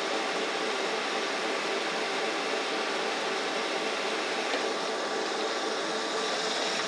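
Metal lathe running steadily while a turning tool takes a slow-feed cut along a 2.5-inch aluminum bar: an even machine whir with faint steady tones in it.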